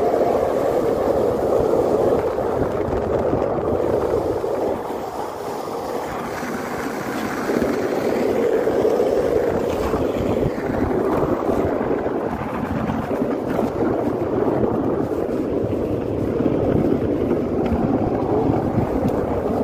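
Wheels of a downhill luge rolling fast over asphalt, a continuous rough rolling noise, with wind buffeting the microphone.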